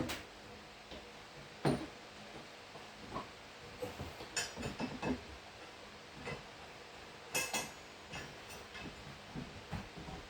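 Small metal mounting hardware (bolts, washers and a bracket bar) clinking and knocking as it is handled: scattered clinks, a cluster of them about four to five seconds in and a sharper ringing pair about seven seconds in.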